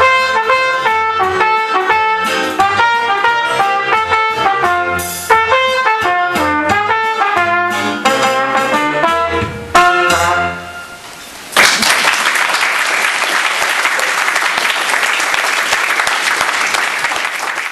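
Brass ensemble playing the last bars of a piece, with accented chords, ending on a held final chord about ten seconds in. About a second later the audience breaks into applause, which carries on.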